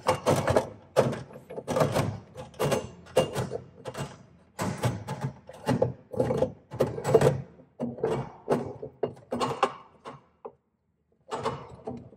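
Irregular clunks, knocks and scrapes of a boiler's flat plate heat exchanger being handled and worked back into place on its mounting studs, several knocks a second, with a brief pause near the end.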